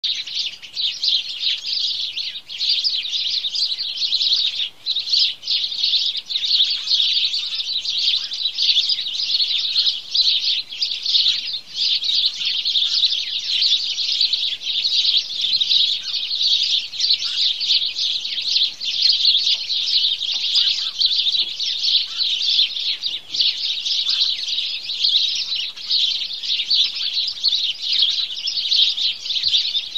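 A flock of sparrows chirping continuously in a dense, overlapping chorus of short, quick notes.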